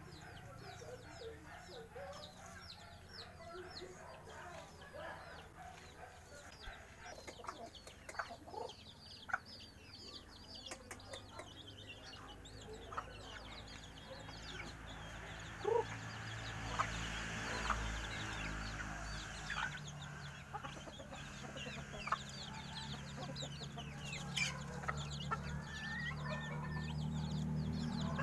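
Chickens clucking, with many quick, high chirps throughout and a few sharp clicks.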